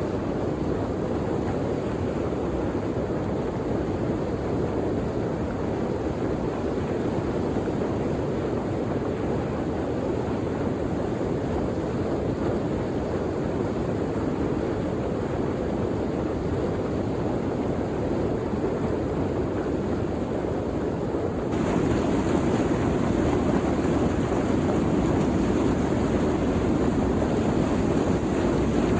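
Steady rush of water pouring over a dam and through the rapids below it. About three quarters of the way through it gets louder and brighter.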